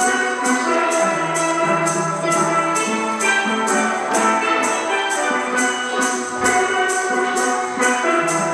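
Upbeat music with a steady quick beat: a shaker or hi-hat ticks about three times a second under bright, sustained melodic notes.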